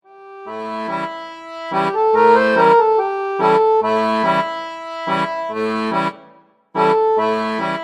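Intro music: an accordion-like reed instrument playing a short tune in repeated phrases, with a brief break about two-thirds of the way through.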